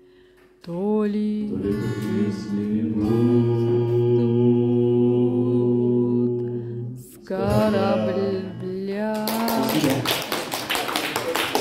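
Male voice with acoustic guitar singing the long held closing notes of a song, which ends; applause from a small audience starts about nine seconds in.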